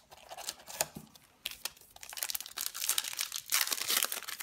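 Wrapper of a baseball card pack crinkling and tearing as it is taken from the box and ripped open by hand. There are scattered crinkles at first, then dense crackling from about two seconds in.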